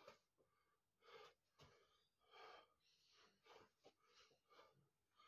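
A man's faint, short breaths in and out, about two puffs a second.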